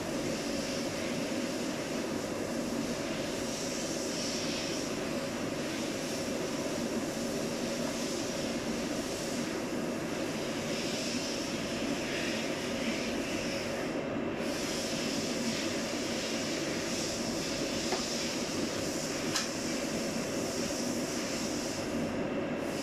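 Noritsu QSF V50 film processor running: a steady mechanical hum and whir, with two faint clicks late on.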